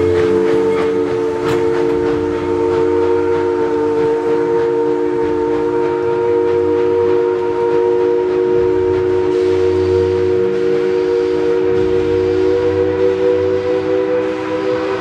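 Steam locomotive's chime whistle held in one long, steady chord over the low rumble of the train, the pitch creeping slightly upward near the end.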